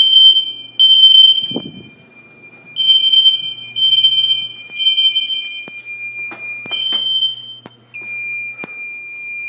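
Fire alarm sounding in the three-beep temporal pattern after a System Sensor i3 smoke detector is set off: high-pitched beeps, each fading, in groups of three with a pause. Near the end a steady high tone takes over, with a few short clicks.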